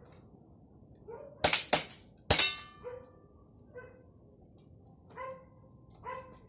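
Three quick shots from a CO2 air pistol, two close together and a third a moment later, the last followed by a short metallic ring. Several short dog barks come before and after them.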